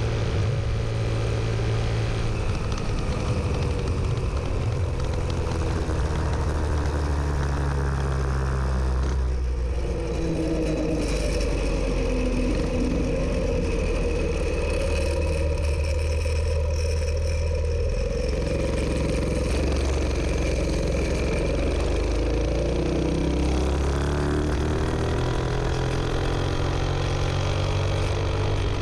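Dirt Bug minibike's 212 cc Hemi single-cylinder engine, with an open pipe and the governor removed, running hard at speed. Its pitch shifts about ten seconds in and climbs again over the last several seconds, under steady wind noise.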